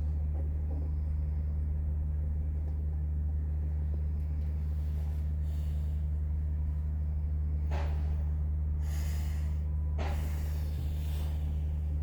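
Steady low electrical hum, with a few breaths into the microphone in the second half.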